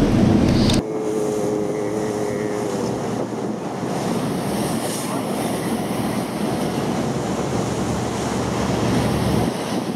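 Wind buffeting the microphone and sea water rushing past the hull of a tour boat under way. A low steady engine hum cuts off sharply less than a second in, leaving the even wind-and-water rush.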